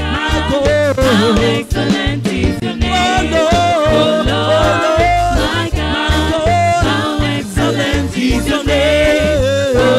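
Live reggae gospel praise music: a lead singer and backing vocalists singing over a band with bass guitar, keyboard and drums, with a strong, steady bass line.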